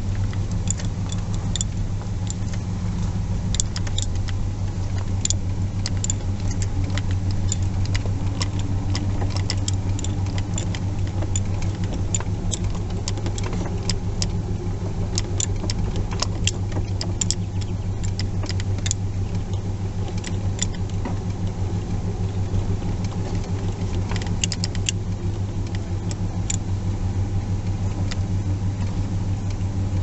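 Old car's engine running with a steady low hum, heard from inside the cab while driving a bumpy dirt track, with frequent light clicks and rattles throughout.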